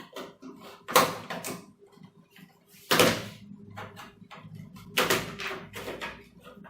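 Plastic snap clips of an all-in-one PC's back casing cracking loose as the cover is pried open: three sharp snaps about two seconds apart, with smaller clicks and scrapes of plastic between them.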